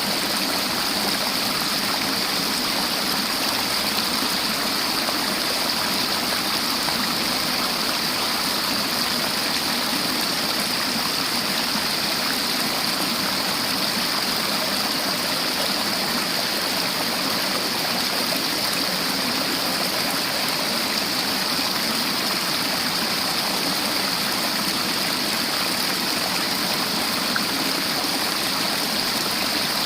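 River water flowing over rocks: a steady rushing with no breaks.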